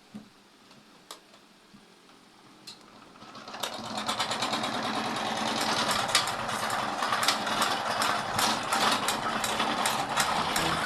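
Electric fan spinning up, with objects fastened to its blades clattering rapidly. There are a few single clicks at first, and then the clatter builds quickly a few seconds in and keeps going.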